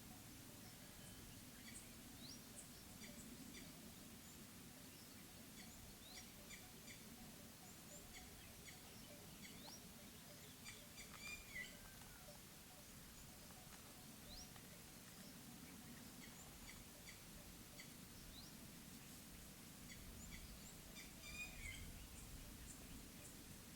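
Faint outdoor mountain ambience: scattered short bird chirps and quick whistled calls, busiest about halfway through and again near the end, over a steady low background rumble.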